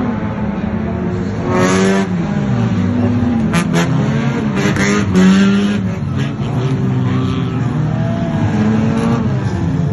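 Several 1500cc banger racing cars' engines revving as they race past, their pitches rising and falling against one another, with a few sharp knocks about three and a half seconds in.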